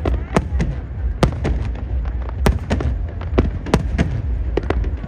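Aerial fireworks display: a rapid, irregular string of sharp bangs, about three or four a second, over a continuous low rumble.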